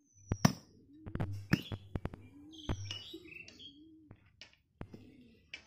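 Sharp, irregular chops of a heavy curved blade cutting goat leg on a chopping block, about ten strikes, with birds chirping and cooing in the background.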